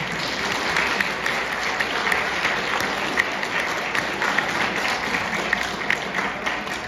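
Audience applauding, a dense clapping that starts suddenly and fades away near the end.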